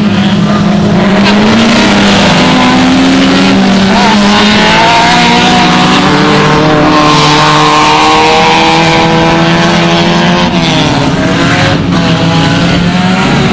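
Engines of several small hatchback race cars running hard on a dirt autocross track, their notes overlapping. One engine climbs steadily in pitch for several seconds, then drops about ten seconds in.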